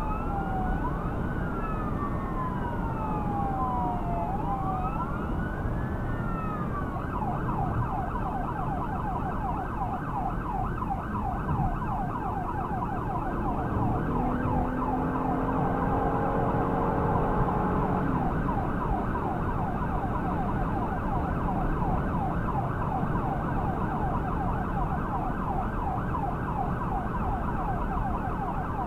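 Emergency vehicle siren in use on a call. It wails in slow rising-and-falling sweeps, then switches about seven seconds in to a rapid yelp that keeps going. A horn sounds for a few seconds around the middle, over steady road noise.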